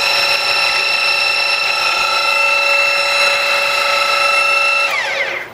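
20-inch geared-head drill press running in reverse in its high gear range, a steady high whine with several pitched tones. About five seconds in it is shut off and the whine falls in pitch as the spindle coasts down.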